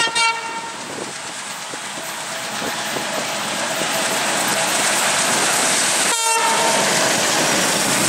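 Twin ALCo WDM-3D diesel-electric locomotives, with 16-cylinder ALCo 251 engines, working at full throttle as they approach, the engine chugging growing steadily louder. Two short horn blasts sound, one at the start and one about six seconds in.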